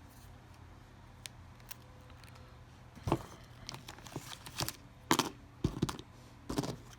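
A run of small clicks, taps and scrapes from hand tools and phone parts being handled during a smartphone teardown, starting about three seconds in and coming irregularly until near the end.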